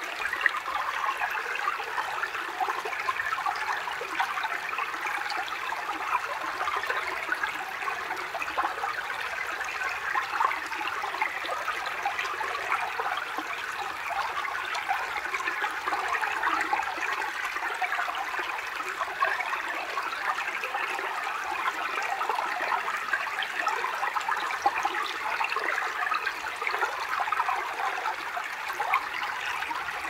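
Small forest stream babbling steadily, an even rush of water with fine splashing detail and no single splash standing out.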